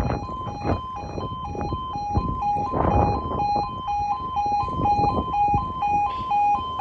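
UK level crossing warning alarm (the two-tone 'yodel'): a loud electronic tone alternating steadily between a lower and a higher note. It sounds because the barriers are down for an approaching train.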